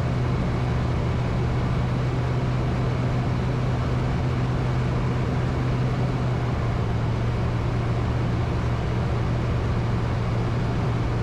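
Ultralight aircraft engine droning steadily at an unchanging pitch during the landing approach, heard from the cockpit, with a steady rushing hiss over it.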